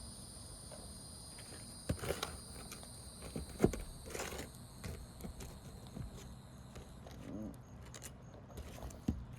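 Scattered scrapes and sharp clicks of a pry tool working under an asphalt shingle to pull out roofing nails, with a steady high whine behind it that stops about seven seconds in.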